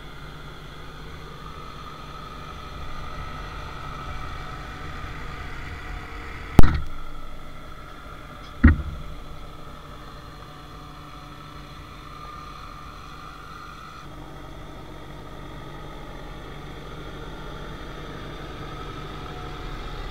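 New Holland T5 tractor's diesel engine running steadily while it pulls a trailed field sprayer across the field, growing slightly louder as it comes closer. Two sharp knocks about six and a half and eight and a half seconds in.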